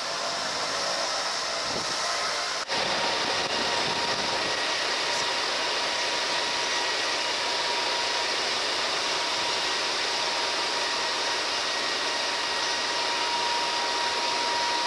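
Steady rushing noise of fire engines running, with a faint steady whine through it. About three seconds in it breaks off for an instant and comes back a little louder.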